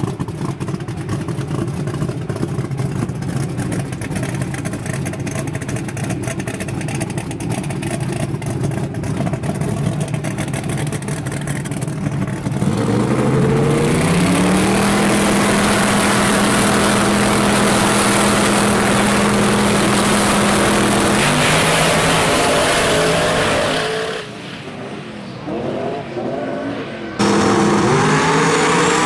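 Drag-racing engine of the Fireball Camaro idling roughly up close, then revving up about twelve seconds in and holding a steady high note for several seconds. After a quieter break, two race cars launch near the end at full throttle, their engine notes falling as they pull away down the track.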